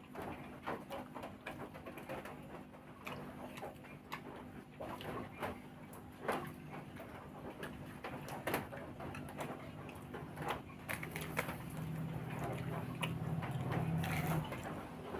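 Close-up eating sounds: chewing and lip-smacking with irregular sharp clicks, and a low hum for a couple of seconds near the end.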